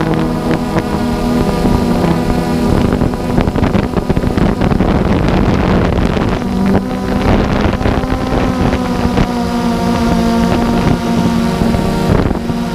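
DJI Phantom 2 quadcopter's motors and propellers whining steadily in several even tones, heard close up, with rushing wind noise that thickens through the middle.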